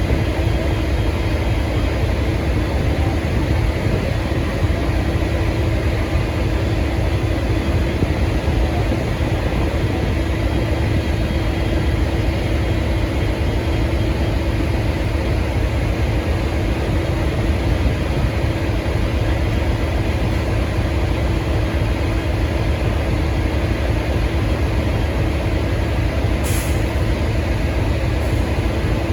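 V/Line N class diesel-electric locomotive running steadily: a constant low engine rumble with a steady hum over it. A brief click is heard near the end.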